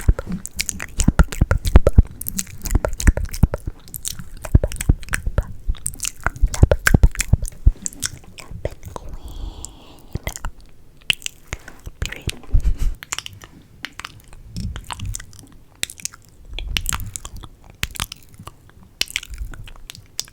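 Close-miked ASMR mouth sounds: a dense run of wet clicks and smacks, with a short lull about halfway through.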